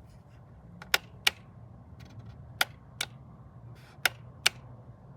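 Sharp clicks in three pairs, the two clicks of each pair about a third of a second apart, over a faint steady low hum.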